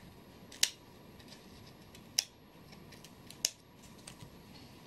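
Scissors snipping a sharp edge off a teacup's rim: three crisp clicks of the blades closing, about a second and a half apart, with a few fainter snips between.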